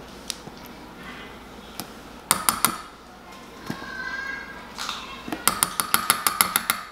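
Metal tablespoon clinking against a Pyrex glass measuring cup as mustard is knocked off it: three quick taps a couple of seconds in, then a rapid run of about a dozen taps near the end.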